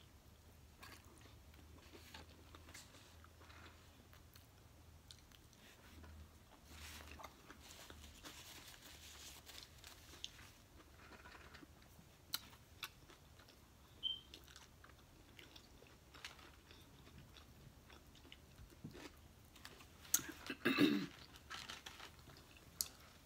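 Close-miked chewing of a burger: faint, repeated soft mouth clicks and smacks as the bite is chewed, with a louder brief sound near the end.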